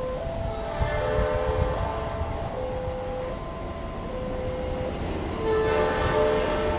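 Train horn sounding a long blast of several steady tones that shift pitch, over the low rumble of the train running past on the tracks.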